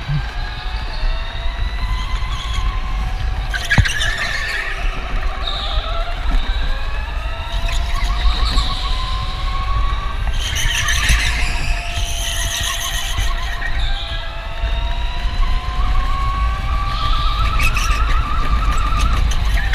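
On-board sound of an electric go-kart racing: the electric motor's whine rising and falling in pitch as the kart speeds up and slows for the corners, over a steady low rumble, with short bursts of tyre squeal in the turns.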